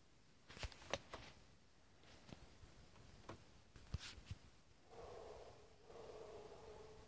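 A few faint clicks and knocks, then a coonhound baying in the distance: two long drawn-out bawls, one right after the other, about two thirds of the way in.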